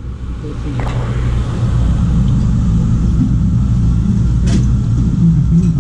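Steady low mechanical rumble with a humming undertone, building up over the first two seconds and then holding, with a couple of light clicks.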